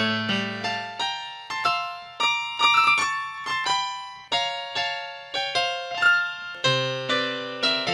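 Piano music: single notes and chords struck one after another, each ringing and fading away.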